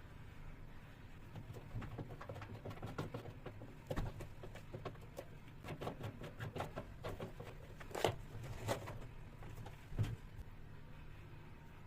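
An irregular run of light clicks and knocks from parts being handled and fitted, with louder single knocks about four, eight and ten seconds in, over a steady low hum.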